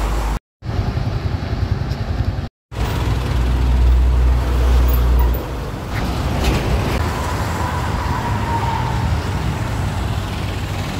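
Road vehicle and traffic noise with a heavy low rumble. It cuts out completely twice, briefly, in the first three seconds, and a faint, slightly falling whine runs through it about seven to nine seconds in.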